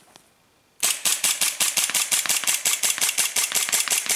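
Cybergun FNX-45 Tactical gas blowback airsoft pistol fired in rapid succession, starting about a second in: a fast, even string of sharp shots at about seven a second, each with the slide cycling. The pistol is on its second magazine from the first gas fill, and the shots keep an even rate and strength, showing very little gas cooldown.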